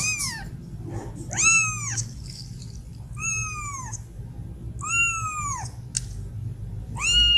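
Young kitten mewing: five high-pitched mews about two seconds apart, each rising and then falling in pitch.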